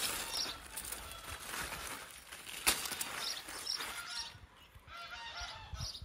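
Geese honking faintly, a scatter of short calls that come thicker near the end. One sharp snap about halfway through.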